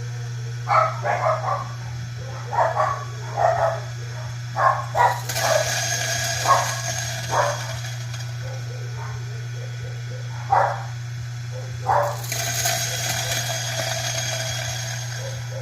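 Electric coffee grinder motor running with a steady hum, while beans slowly fed into it are cracked by the burrs in a dozen or so short, irregular crunching bursts. A higher hiss of grinding joins about five seconds in.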